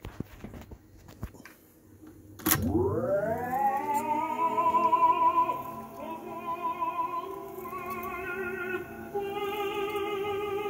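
Sony TC-366 reel-to-reel tape deck starting playback on a test after repair. A click of the transport engaging comes about two and a half seconds in, then recorded music with a singing voice slides up in pitch from low as the tape comes up to speed, and after that plays steadily.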